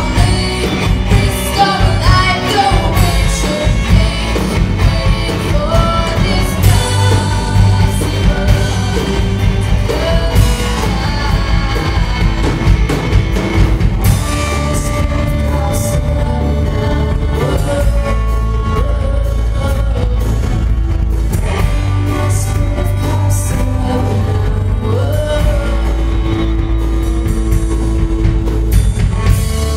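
Live rock band playing with a lead singer. About halfway through, the hard drum beat thins out and the band holds long, sustained chords under the vocal.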